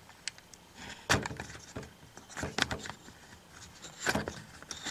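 Handling noise: a few sharp knocks and clunks, about a second in, twice around two and a half seconds and again near four seconds, with light rustling between, as things are moved about by hand.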